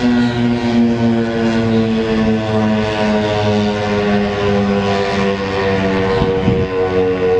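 ACA P-15 outdoor warning siren sounding its steady alert tone, holding one pitch while its loudness swells and fades every second or so.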